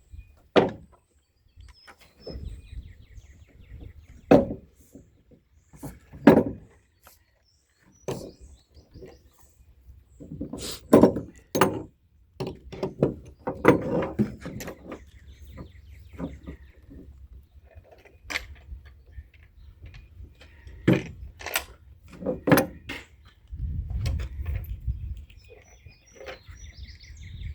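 A series of irregular knocks and clanks, with birds chirping faintly in the background.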